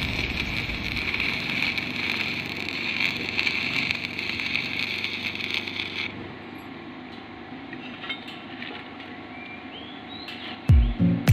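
Stick-welding arc on steel plate: a steady hiss for about six seconds that cuts off suddenly as the arc is broken. Loud background music comes in near the end.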